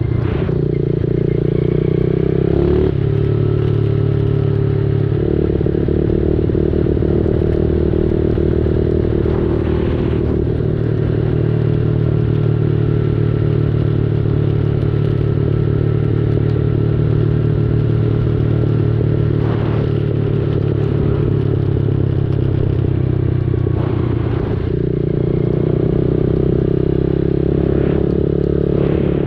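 Dirt bike engine running steadily under way, its note shifting a few times as the throttle or gear changes, with occasional knocks and clatter from the bike.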